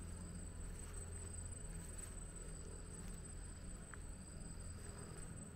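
Insects calling in one steady, high-pitched drone, with a low steady rumble underneath.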